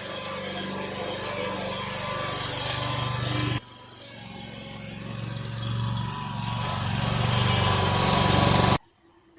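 Riding lawn mower engine running steadily. It drops away suddenly about three and a half seconds in, then grows steadily louder before cutting off abruptly near the end.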